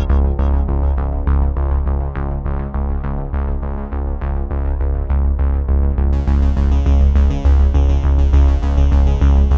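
Instrumental country-style background music with a steady beat and strong bass; the sound gets fuller and brighter about six seconds in.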